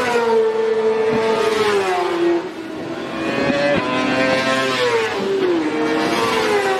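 Several racing sport motorcycles at high revs on the straight, their engines overlapping in a steady, loud drone. The pitch slides down about two seconds in and again about five and a half seconds in.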